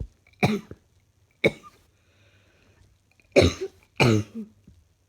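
A woman's chesty cough, sounding out four times: two coughs about a second apart, then after a pause of nearly two seconds two more in quick succession. It is the cough of someone who is ill.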